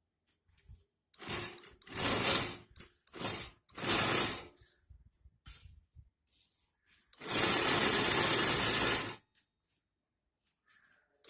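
Small geared DC motor of a model door mechanism running with a gear whir. It runs in four short spurts in the first few seconds, then once for about two seconds, stopping abruptly each time.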